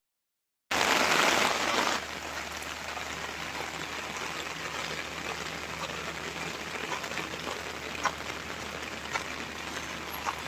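Steady rain falling, with a few sharp drops standing out. After a brief cut to dead silence at the start, a louder rush of rain-like noise lasts about a second before it settles.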